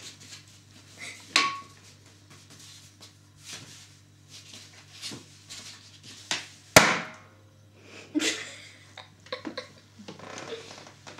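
Long rubber modelling balloon being batted, grabbed and rolled on by a cat: irregular taps, knocks and rubbery squeaks, a dozen or so, with the loudest about two-thirds of the way through.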